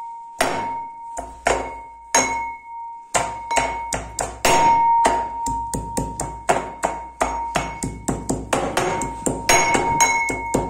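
Fresh ginger being pounded with a pestle in a metal mortar. Each strike leaves a ringing metallic tone. There are a few slow strikes at first, then from about three seconds in a steady pounding of about three strikes a second.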